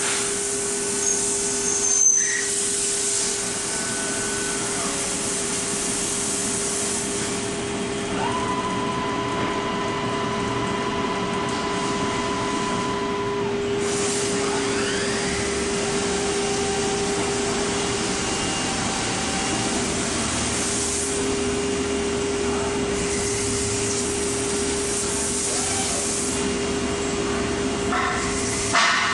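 Hartford CNC machining center milling under flood coolant: a steady whine from the spindle and cut over the hiss of spraying coolant. A higher whine joins for about five seconds in the middle and again more faintly a little later. There is a sharp click about two seconds in.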